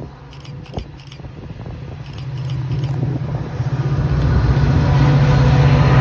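Metra F40PH diesel-electric locomotive approaching and passing with its bilevel coaches, its low diesel throb growing steadily louder over a few seconds. A rapid faint clicking is heard in the first two seconds.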